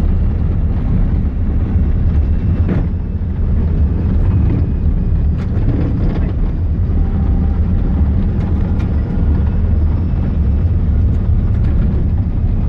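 Inside a moving vehicle: a loud, steady low rumble of engine and tyres on the road, with a few faint knocks and rattles.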